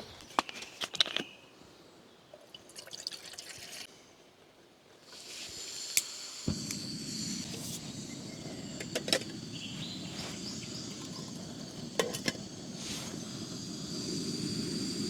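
A few clicks and handling noises, then about six and a half seconds in a gas camping stove burner lights and burns with a steady hiss, heating water for coffee.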